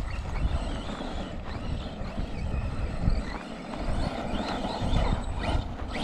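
Arrma Big Rock RC monster truck driving, its electric motor whining up briefly a few times over a steady low rumble.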